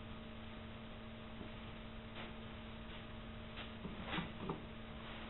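Quiet steady hum with a few faint ticks and clicks about two and four seconds in.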